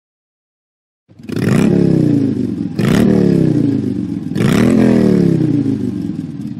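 The iPhone's classic "Motorcycle" ringtone: a recorded motorcycle engine revving three times, each rev jumping up in pitch and then falling back, starting about a second in.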